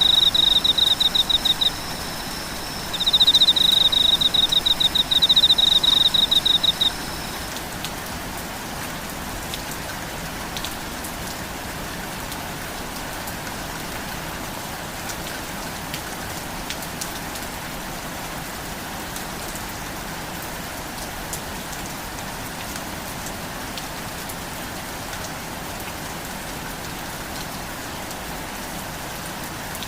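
Steady rain falling. In the first seven seconds, a high, rapidly pulsing trill comes in two stretches, louder than the rain, then stops.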